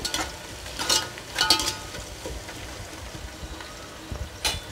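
Sliced onions and green chillies sizzling in hot oil in a metal pot, with a steady hiss. A metal spoon clinks and scrapes against the pot three times as they are stirred.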